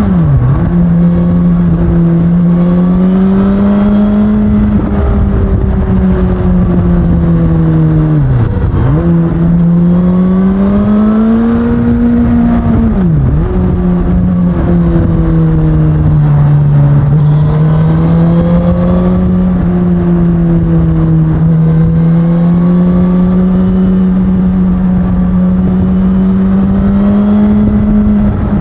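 2019 Suzuki Katana's inline-four engine running through its stock exhaust, its note rising and falling with the throttle. The pitch drops sharply and briefly three times: near the start, about nine seconds in, and about thirteen seconds in.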